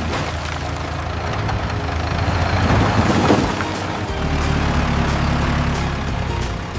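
Background music over a low, steady engine running, with a louder noisy swell about three seconds in.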